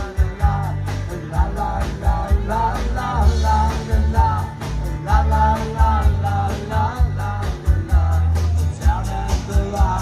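A live band playing a tropical rock song, with a steady drum beat under guitar and a melodic lead line.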